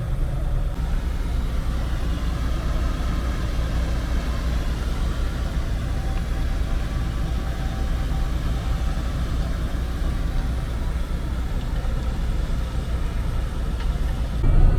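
A loaded dump truck's engine running steadily with a low rumble.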